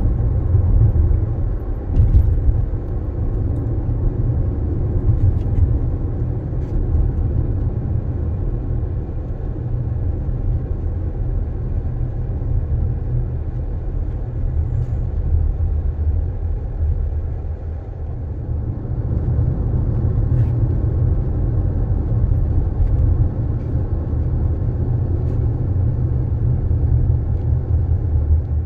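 A car being driven, with a steady low road and engine rumble that eases briefly about two thirds of the way through and then builds again.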